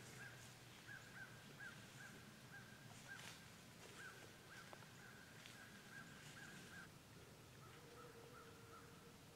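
Near silence, with faint distant bird calls: a quick run of short repeated notes, about two or three a second, that grows fainter about seven seconds in.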